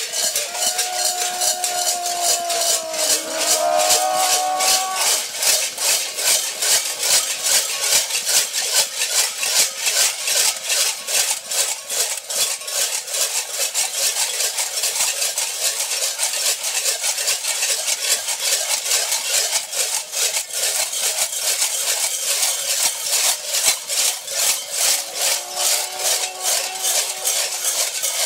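Clusters of bells strapped around the waists of a group of walking masked devils, jangling in a steady rhythm with their steps. A drawn-out, wavering call sounds over them for a few seconds near the start and again near the end.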